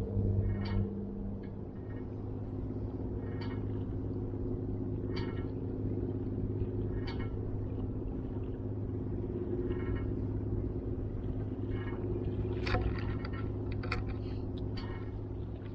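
A boat engine running with a steady low drone, with short high chirps coming every second or two over it.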